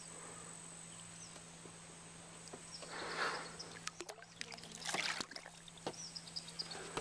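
Water splashing and sloshing, with two louder splashes about three and five seconds in and scattered knocks and clicks, as a freshly caught largemouth bass is handled over the water.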